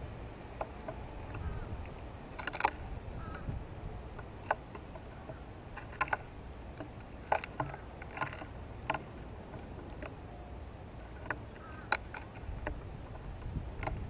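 Male painted buntings pecking seed off a wooden platform feeder close to the microphone: about a dozen sharp taps and clicks at irregular intervals, over a low steady rumble.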